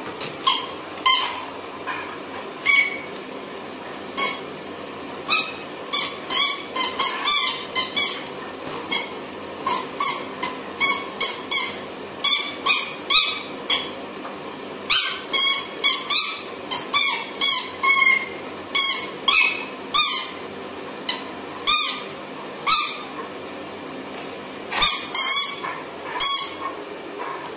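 A dog chewing a squeaky toy, squeezing out short, high squeaks over and over in quick irregular runs.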